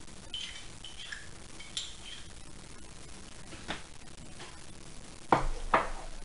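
Metal spoon clinking and scraping against a small glass baby-food jar as food is scooped out, a few light ringing clinks. Two louder knocks come near the end.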